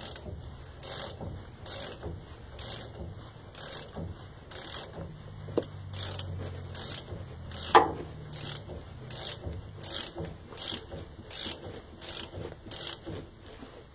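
Hand ratchet wrench clicking in a steady rhythm of about one stroke a second as it backs out the caging bolt on a truck's spring brake chamber. The bolt is caging the parking-brake spring to release the Lucas Girling wedge brakes, and it is turning against growing spring resistance.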